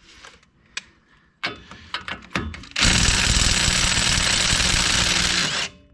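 Cordless impact driver hammering for about three seconds as it tightens the strut-to-knuckle bolt, then stopping suddenly. A few light clicks and knocks come before it, as the socket is fitted onto the bolt.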